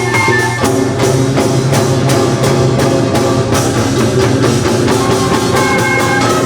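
Korean traditional orchestra (gugak orchestra) playing loudly: fast, even drum and percussion strokes under sustained wind and string tones, in a piece built on the rhythms and melodies of East Coast byeolsingut shaman music.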